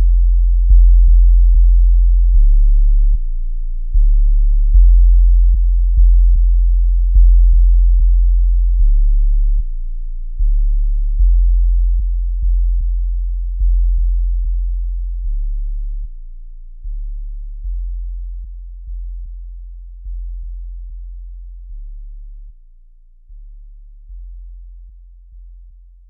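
Minimal electronic drone music: very deep bass sine tones in slow swells that jump up and decay every second or two, with faint soft ticks about twice a second, the whole fading out steadily as the track ends.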